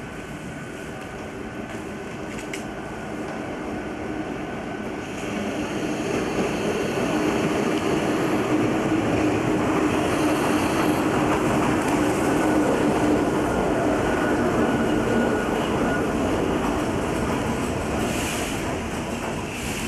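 Iyo Railway electric train approaching and running in along the platform, its running noise growing louder as the cars come alongside, with a steady low hum.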